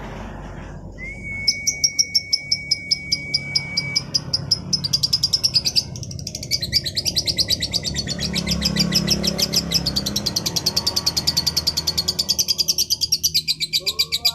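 Female lovebird chattering in a long, unbroken run of rapid high chirps that speed up into a continuous trill, after a steady whistled note near the start. This is the non-stop chatter that keepers call 'bocor'.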